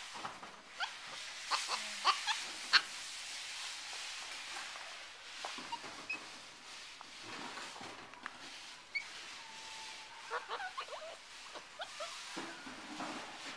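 Capuchin monkeys chirping and squeaking: many short, high chirps in quick clusters, loudest about two to three seconds in, with another burst of them near the end.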